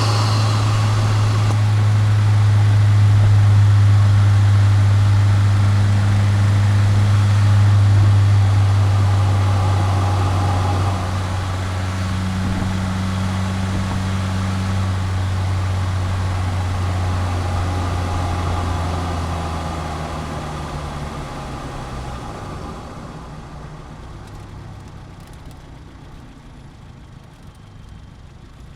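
2022 Subaru WRX's turbocharged flat-four engine heard through a microphone mounted at the intake, running with a steady low drone. The drone drops away about two-thirds of the way through and the sound fades over the last several seconds.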